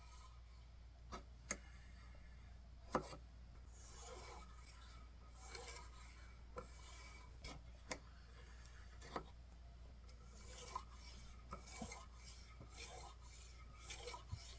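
Faint, irregular scraping strokes of a kitchen knife blade being sharpened, with several light clicks in between.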